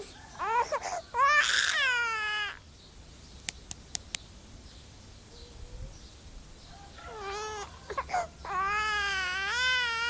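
Myna bird mimicking a human baby's cry: a short whimper, then a long wail about a second in, and another long wavering cry near the end.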